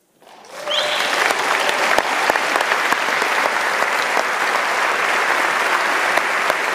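Audience applause starts out of near silence and within about a second swells to steady, dense clapping.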